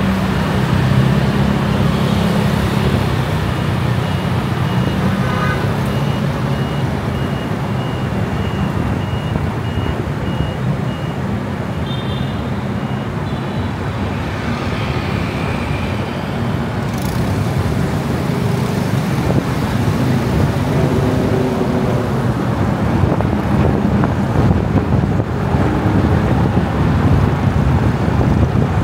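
Steady city road traffic heard from a car being driven through town: a continuous wash of engine and tyre noise with a low engine hum. A faint high beep repeats about twice a second for the first ten seconds or so.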